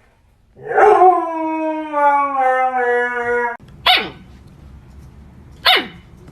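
A dog howls one long howl, slowly falling in pitch, that cuts off suddenly, then gives two short sharp barks.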